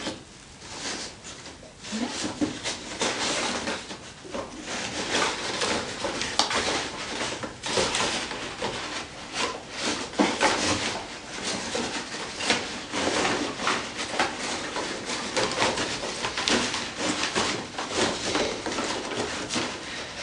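Empty cardboard toilet-roll tubes clattering and rustling against each other and the plastic crate as a Dalmatian roots through them with its nose, searching for hidden treats. It is a continuous, irregular rattle of light knocks and scrapes.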